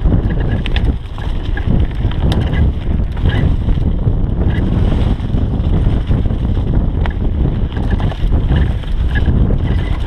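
Mountain bike descending a leaf-covered dirt trail at speed: steady wind rushing over the microphone and tyres rolling over dirt and leaves, with a few sharp clicks and knocks from the bike over bumps.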